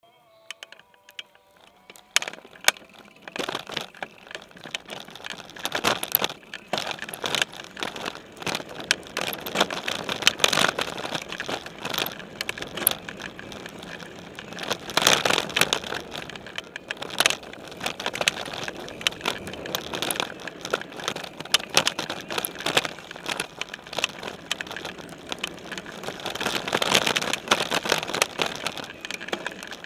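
Specialized Stumpjumper mountain bike ridden over a dirt trail, heard through its frame: tyres rolling and crunching over dirt and dry leaves, with constant rattles, clicks and knocks as the bike bounces over the ground. The first two seconds are quieter before the noise picks up.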